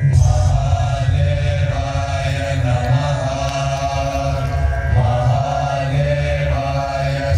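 Chanted vocals in drawn-out phrases over music with a steady, heavy deep bass drone, from a light-and-sound show's soundtrack.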